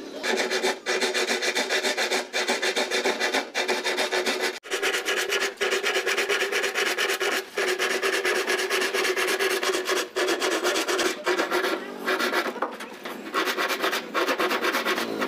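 Hand saw cutting through a plywood sheet, a steady run of rapid back-and-forth rasping strokes with brief breaks between them and a short easing near the end.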